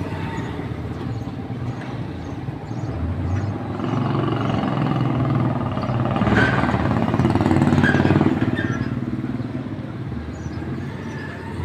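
Motorcycle engine passing close by, growing louder to a peak about six to eight seconds in and then fading away.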